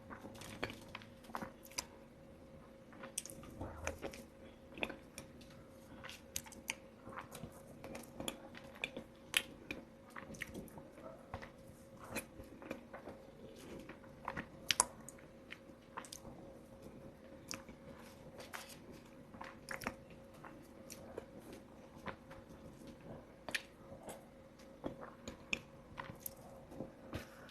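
Close-miked chewing and biting of soft matcha lava cake: irregular wet mouth clicks and smacks throughout, over a faint steady hum.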